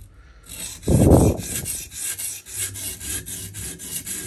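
A diamond sharpening stone on a TSPROF Kadet Pro guided sharpener rasping back and forth along a steel knife edge in quick, even strokes, about four a second. About a second in there is a brief loud low bump.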